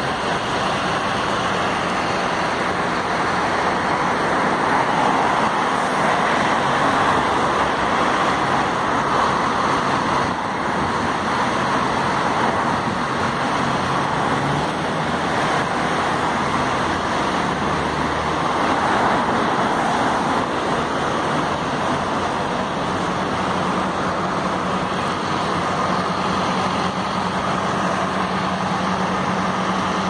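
Street traffic noise, with cars passing on the road and the sound swelling twice as they go by. A steady low engine hum comes in about two-thirds of the way through.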